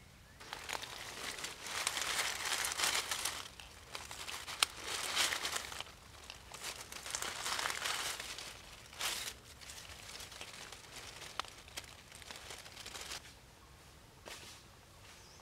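Dry leaf litter crackling and rustling in uneven bursts, with a few sharp snaps, as a hand reaches into a ground nest and gathers eggs. The rustling dies away near the end.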